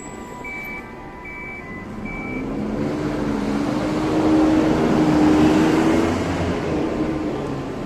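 A motor vehicle drives past close by. Engine and tyre noise swell over a few seconds, peak about midway, and fade away.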